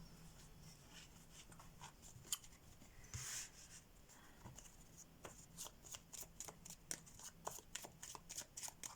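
Deck of playing cards being shuffled by hand: faint papery rustle, then from about five seconds in a quick run of soft card clicks, several a second.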